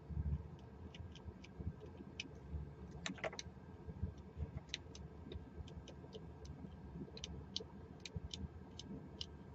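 Number wheels of a Master Lock four-digit combination padlock clicking as they are turned notch by notch: small, sharp clicks at an uneven pace, with a quick run of clicks about three seconds in, over low handling noise.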